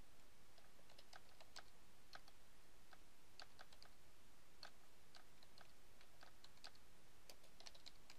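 Computer keyboard being typed on: faint, irregularly spaced keystrokes.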